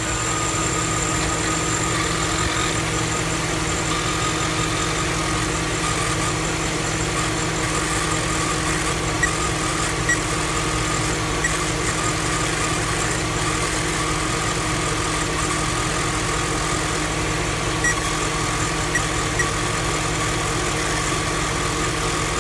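2007 GMC Yukon's V8 engine idling steadily, with a steady whine over the running, as its newly installed alternator charges at about 14.7 volts. A few faint clicks near the middle and toward the end.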